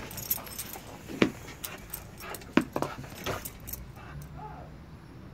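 Dog's metal collar tags jingling as it moves about, with two short, sharp loud knocks, one about a second in and one about two and a half seconds in.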